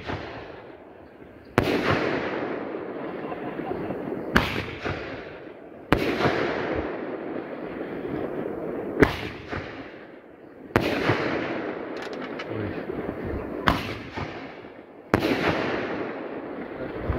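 A 30 mm brocade roman candle firing shot after shot: about seven sharp bangs, one every one and a half to three seconds, each followed by a fading hiss.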